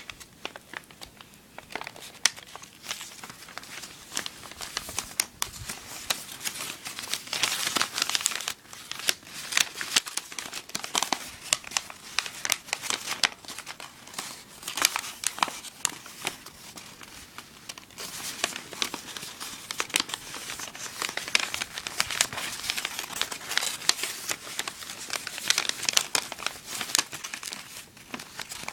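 A sheet of origami paper being folded and creased by hand: continuous irregular crinkling and rustling with sharp crisp crackles as folds are pressed in.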